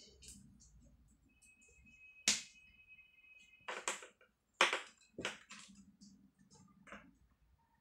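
Sharp clicks and knocks of hands handling the speakers and plugging in their cables, about six of them with a light rustle between. A faint steady high tone sounds for about two seconds partway through.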